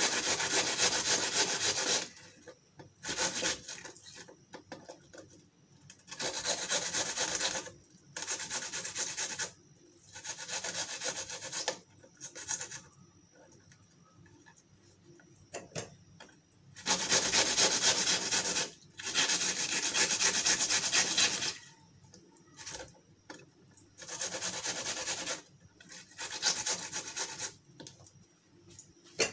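A red onion being grated on a flat metal grater: spells of rasping strokes, each lasting a second or two, with short pauses between them and a longer pause about halfway through.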